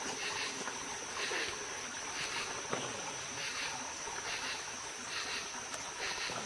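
Night insect chorus: a steady high trill with a pulsing call repeating roughly once a second, and one faint click about three seconds in.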